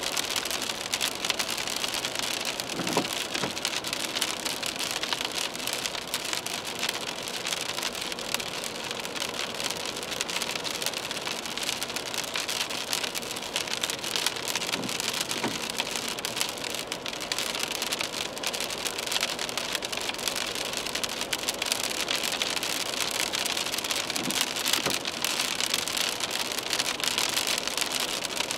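Steady rain pattering on a moving car's windshield, heard from inside the cabin: a dense, even hiss of many small drop ticks.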